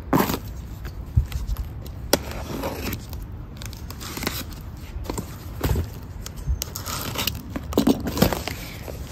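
A small cardboard box being handled and its packing tape slit with a utility knife: irregular taps, scrapes and crackles of cardboard and tape.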